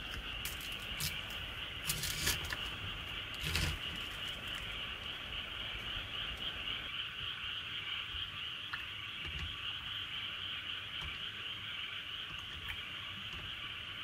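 A steady, high-pitched night chorus of calling creatures outside. In the first few seconds, sharp plastic crackles and clicks come from a plastic jelly cup as its sealed lid is peeled off, the loudest about two seconds in and again near four seconds; after that a spoon ticks faintly in the cup now and then.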